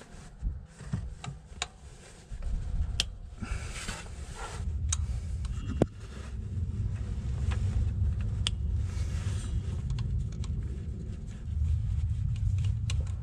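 A screwdriver working the small Phillips screws out of a transfer case actuator's motor cover: scattered light metal clicks and scrapes, over a steady low rumble that sets in about two seconds in.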